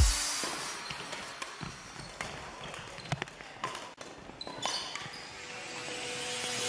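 Badminton being played in a sports hall: scattered sharp racket hits on the shuttlecock and footfalls on the hall floor, echoing in the hall.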